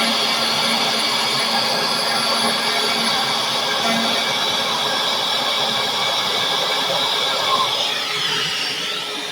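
Xhorse Dolphin XP-005 key cutting machine milling a key blade: a steady high whine over a dense hiss, with a vacuum running to pick up the chips. Near the end the whine's pitch wavers up and down.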